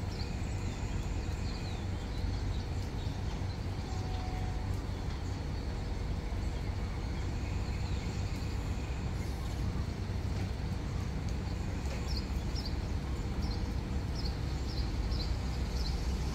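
Steady low rumble of diesel track maintenance vehicles running in a rail yard. Birds chirp repeatedly in the last few seconds.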